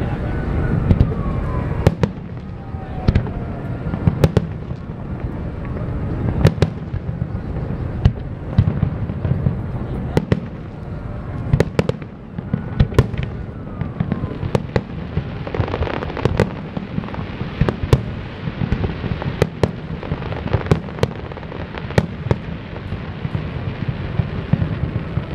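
Aerial fireworks shells bursting in a display: many sharp bangs at irregular intervals, with a denser rush of noise about fifteen seconds in.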